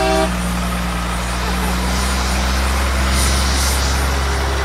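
Aérospatiale Gazelle helicopter's turbine running steadily on the ground, its rotor still turning during shutdown, mixed with the engine of a military truck driving past close by. A short pitched tone sounds at the very start.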